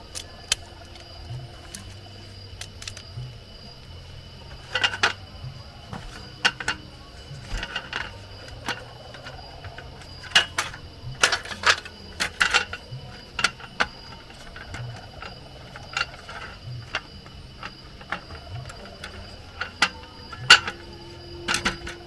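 Clicks, knocks and rattles of a folding camp table being put together: the metal leg frame handled and the slatted roll-up tabletop laid onto it. The clatter comes in clusters about five seconds in, between ten and thirteen seconds, and near the end.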